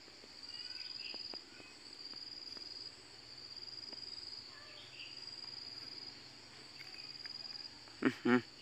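An insect, cricket-like, trilling at a high steady pitch in repeated phrases about a second and a half long with short breaks. A brief voice sounds near the end.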